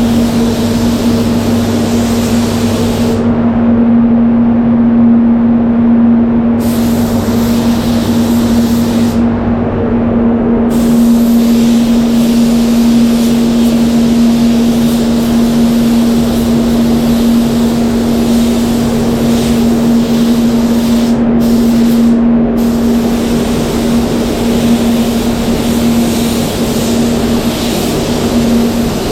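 Paint spray booth running: a steady rush of air with a constant low hum from the extraction fans, heard while clear coat is being sprayed.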